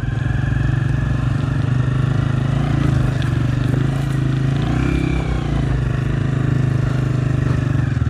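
Motorcycle engine running steadily while riding along a rough, broken road under construction.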